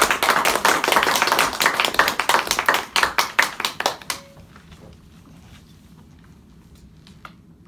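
A small audience applauding with dense, rapid clapping that dies away about four seconds in.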